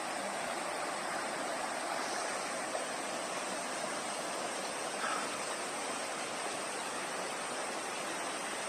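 Steady rush of a waterfall, falling water pouring and splashing without a break.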